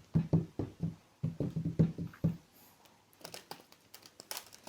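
Tarot cards being handled by hand: a quick run of soft taps and flicks for about two seconds, then a few light, sharper clicks near the end.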